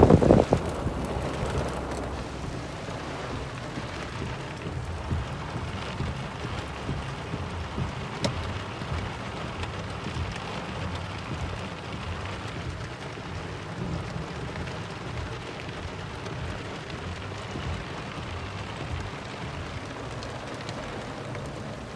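Heavy rain falling steadily, a constant hiss, heard through a car's open window. There is a loud blast of wind on the microphone at the very start.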